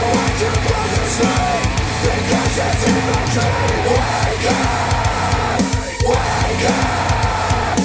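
Loud rock music with a steady beat, played back through Wharfedale Denton 80th bookshelf speakers driven by a Cambridge AXA35 integrated amplifier; it breaks off briefly about six seconds in.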